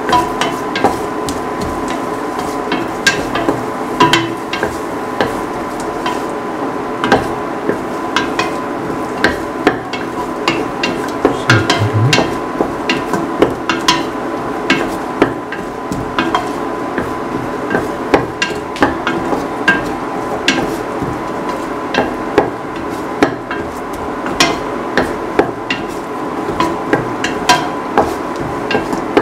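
A spoon stirring and scraping sautéing onions, shallots and curry leaves in a stainless steel pan, knocking against the metal in frequent sharp clicks, about one or two a second, over a steady hiss.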